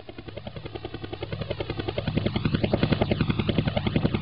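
Helicopter approaching quickly, its rotor beating in a rapid, even rhythm that grows steadily louder, loudest in the second half.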